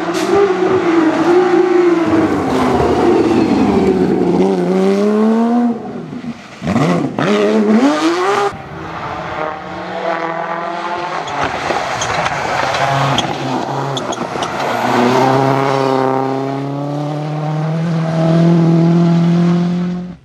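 Rally cars driving flat out on a tarmac special stage in a series of short clips. Their engines rev up and drop in pitch with each gear change as they pass, and near the end one engine holds a long, slowly rising note.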